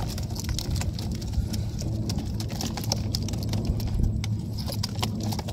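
Quick, irregular clicks and taps of live shrimp and small fish flipping against a woven bamboo basket as a hand stirs the catch, over a steady low hum.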